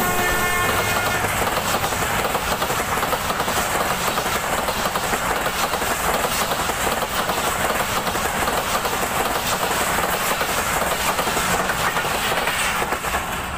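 Pakistan Railways express passenger coaches passing close at speed: a loud, steady rush of wheels and air with clickety-clack from the rails. The tail of the locomotive's horn note fades out about a second in, and the noise begins to ease near the end as the last vehicles go by.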